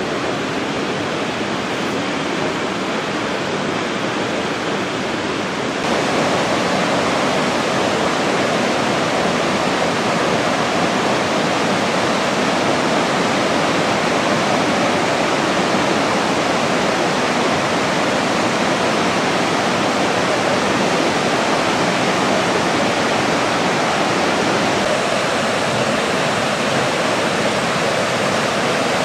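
Sanjō Falls pouring, a steady dense rush of falling water that gets louder about six seconds in.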